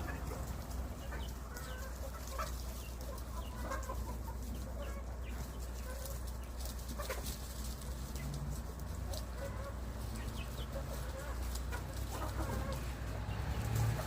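Chickens clucking, short scattered calls throughout, over a steady low rumble.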